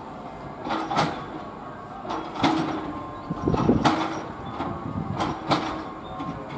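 Class 321 electric multiple unit running slowly along the platform, its wheels clunking over rail joints about every second and a half, each knock carrying a short ringing tone, over a steady rumble.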